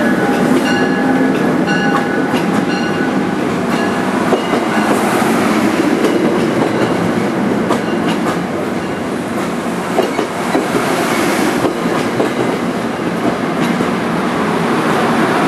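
NJ Transit Comet passenger coaches rolling past at close range: a steady rumble of steel wheels on rail, with clicks as the wheels cross rail joints.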